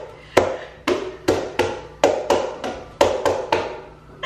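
Hands tapping and slapping on a granite countertop in a quick, uneven run of a dozen or so sharp taps.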